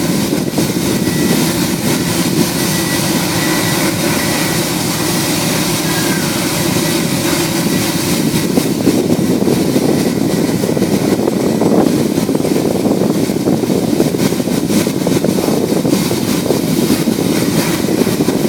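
Indian Railways diesel locomotive's engine running steadily at close range, a loud continuous low rumble with a hiss above it.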